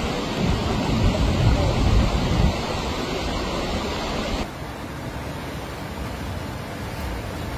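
Steady rushing of flood water. It is heavier for the first four and a half seconds, then cuts abruptly to a quieter rush.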